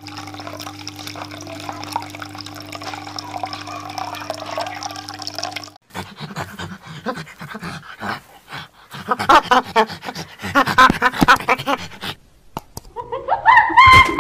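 A steady hum with a watery hiss for about six seconds, then stops. It is followed by a run of chimpanzee hoots and pants in quick succession, building near the end into repeated rising high calls.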